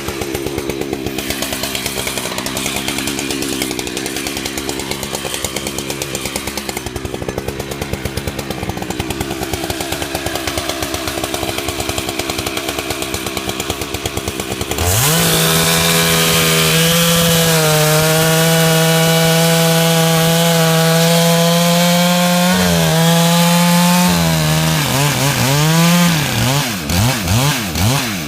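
Two-stroke chainsaw running at a low, pulsing speed, then opened to full throttle about halfway through and held there, its pitch sagging slightly as it works through a log. Near the end the engine drops off and is revved up and down in short blips.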